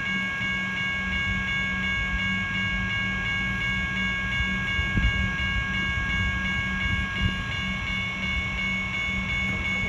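A train running steadily with a constant, even whine and a low hum that do not change in pitch.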